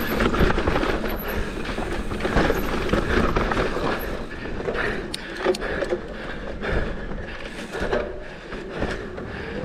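Mountain bike rolling fast over a dirt trail: steady tyre noise on dirt with scattered knocks and rattles from the bike, and two sharp knocks a little after the middle.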